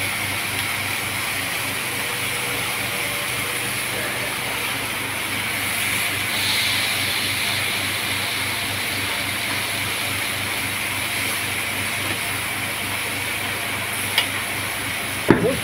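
Steady hiss of beef ribs grilling in a hot cast-iron grill pan over a gas burner, with a light click of metal tongs near the end.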